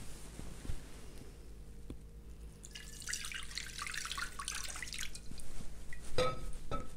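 Water poured from a pottery jug over a pair of hands, splashing and trickling into a pottery bowl for a couple of seconds. Near the end come two light knocks with a short ring.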